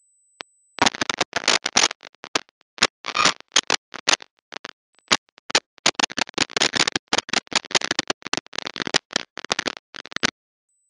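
Loud live club music, so distorted on the recording that it comes through as harsh noise. It is chopped into fragments by many abrupt dropouts to dead silence, starting about a second in and cutting off shortly before the end.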